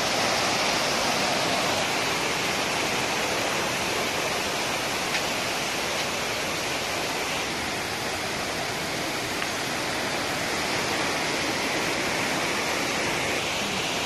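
Small waterfall cascading over boulders into a pool: a steady rush of water.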